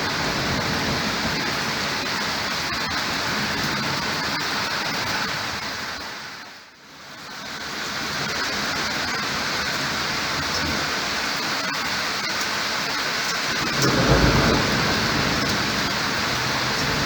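Heavy rain pouring steadily during a thunderstorm. The rain briefly fades down and comes back up about a third of the way through, and a low rumble of thunder swells up near the end.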